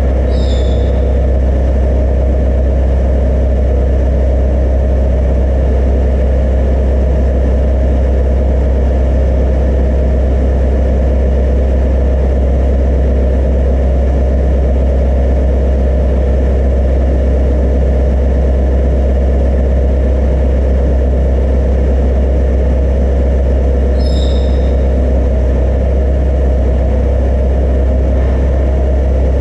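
A machine running steadily and loudly with a deep, even hum, unchanging throughout, with a brief high squeak or chirp about half a second in and again near the end.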